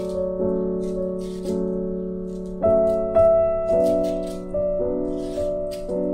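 Background piano music: soft chords struck about once a second, each ringing and fading into the next.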